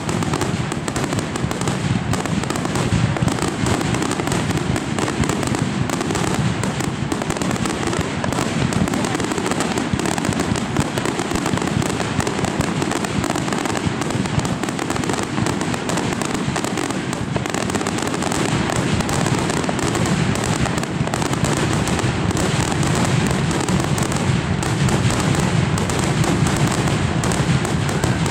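Aerial fireworks shells bursting in a rapid, unbroken barrage, many bangs overlapping one another with crackling.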